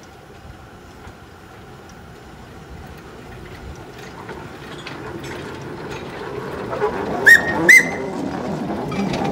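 Narrow-gauge steam locomotive and its wagons running by, the rumble and clatter growing louder as the train approaches. About seven seconds in the engine's steam whistle gives two short toots, each briefly sliding up before holding a high note; these are the loudest sounds.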